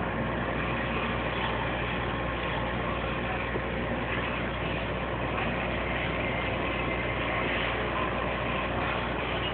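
An engine running steadily at idle, a continuous hum and rumble under even background noise, with no distinct knocks or breaks.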